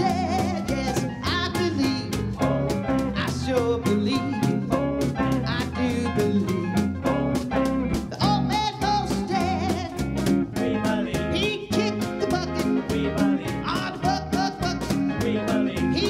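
A woman singing a swing-style song to her own headless electric guitar, the guitar keeping a steady run of plucked notes under her wavering voice.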